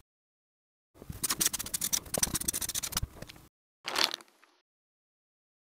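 Rapid scratching and scraping on paper for about two and a half seconds, then one short scrape.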